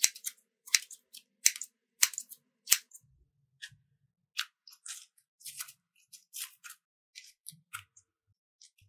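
A run of sharp, crisp clicks, about one every three-quarters of a second for the first few seconds, then softer, irregular crackles and snaps.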